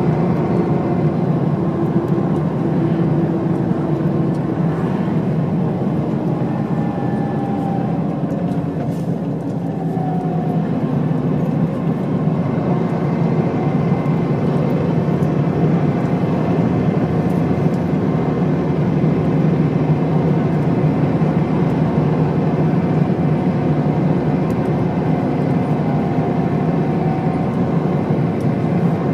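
Volvo diesel engine of a 1997 Steyr SL 12 bus running at road speed, heard from inside the passenger cabin as a steady low drone mixed with tyre and road noise. The level dips slightly about a third of the way in.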